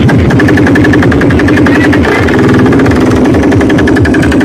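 A large competition sound system blasting a fast, heavily driven electronic pulse track: a rapid, machine-like beat of many strokes a second under a steady low tone and a held high tone.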